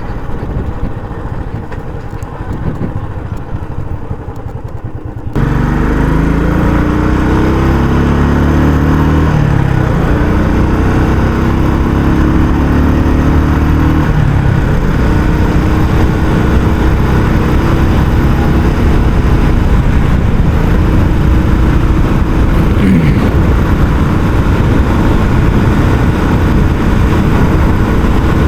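Royal Enfield Classic 350's single-cylinder engine running through its stock exhaust while riding. About five seconds in it gets suddenly much louder, and the engine note climbs and drops several times as the bike pulls through the gears.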